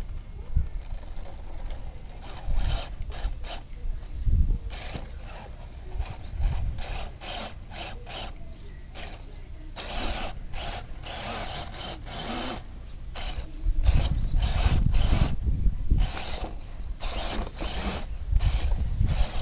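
Axial SCX10 RC crawler clambering over logs and branches: irregular scraping, rubbing and knocking of its tyres and chassis on wood. The sound grows louder about ten seconds in and again from about fourteen seconds on.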